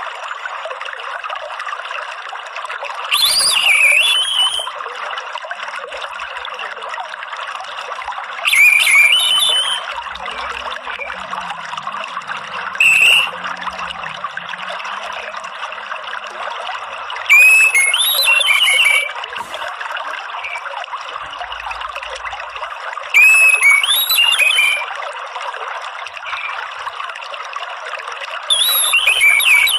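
Orange-headed thrush 'ngeriwik' chattering calls, six short bursts about every five to six seconds, over steady trickling water. A recording of this kind is played to lure a caged anis merah into singing.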